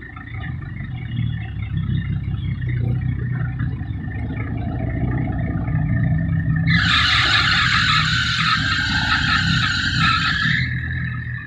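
An old Isuzu dump truck's diesel engine running with a steady low rumble. About two-thirds of the way in, a loud hiss joins it for roughly four seconds and then cuts off.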